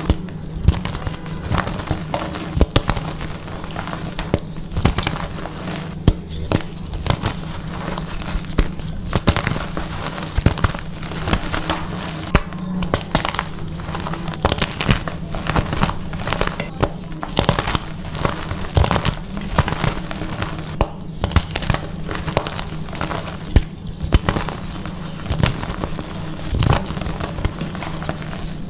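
Blocks of gym chalk being crushed and crumbled by hand, giving a dense run of irregular crunches and crackles.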